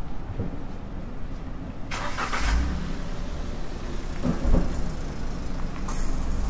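A car driving past on a street, its engine rumbling and tyres hissing. The noise swells about two seconds in and again near the end.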